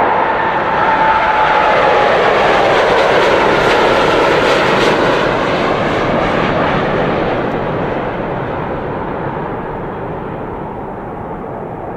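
Boeing 787 Dreamliner's twin turbofan engines at takeoff thrust during lift-off and climb-out: loud jet noise with a whine that falls in pitch in the first couple of seconds, strongest a few seconds in, then slowly fading as the airliner climbs away.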